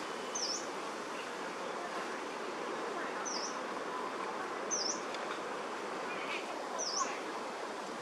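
A small bird repeating one short, high call note four times, a second or two apart, over a steady background hiss.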